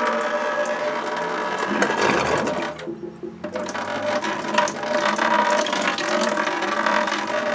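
Water draining out of an old gas boiler's tank into a bucket in a steady stream, dropping away briefly about three seconds in.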